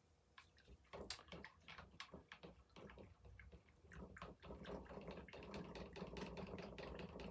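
Faint dripping and small splashes of liquid being poured and mixed in a cup, quick little clicks that grow busier about four seconds in: dissolved washing soda going into coffee.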